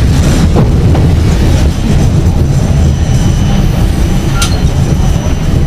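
Vienna tram running along street track, heard from inside the car: a loud, steady low rumble, with faint high wheel squeal and a sharp click about four seconds in.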